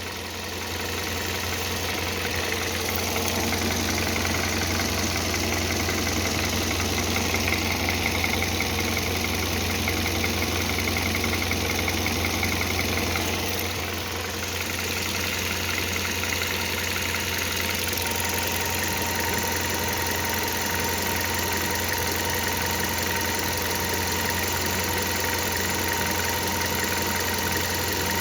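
Hyundai Solaris 1.6-litre four-cylinder petrol engine idling steadily when fully warmed up, with the extraneous noise that shows up only after full warm-up. A thin steady tone joins the idle about two-thirds of the way through.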